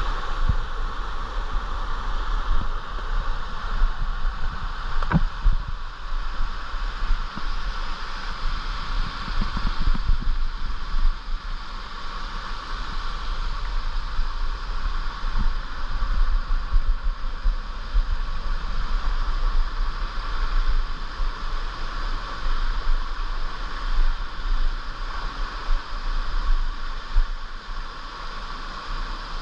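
Steady rush of water from a mountain stream or waterfall, with a low rumble underneath and a single sharp click about five seconds in.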